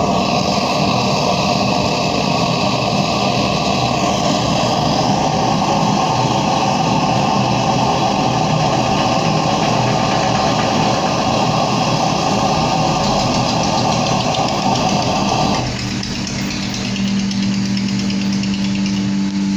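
Gas melting furnace running with a steady roar. Near the end the roar drops away and a steady low hum is left.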